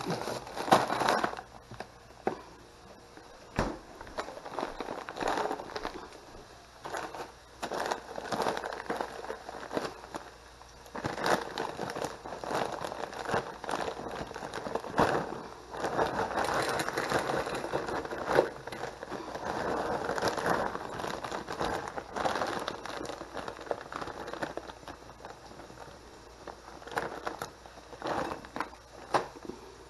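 Plastic bags of frozen vegetables crinkling and rustling as they are handled, with many small irregular clicks and crackles, and frozen mixed vegetables poured from the bag onto a plate.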